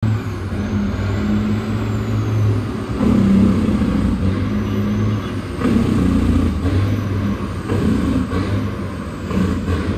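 Diesel engine of a Western Star truck hauling a lowboy trailer, a steady low drone that swells and eases a little as it pulls.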